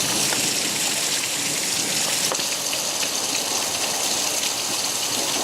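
Heavy rain pouring down steadily, a dense hiss with scattered drop ticks.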